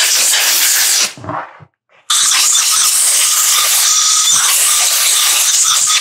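Compressed air rushing out of an air-hose blow gun in two blasts, blowing debris off a chainsaw around its fuel filler so that dirt does not get into the gas. The first blast cuts off about a second in with a short spurt after it. The second starts about two seconds in, carries a faint whistle, and stops near the end.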